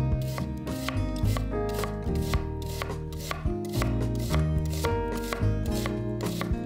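Chef's knife slicing through an onion and tapping the wooden cutting board in a quick, even rhythm, about three cuts a second. Background music plays underneath.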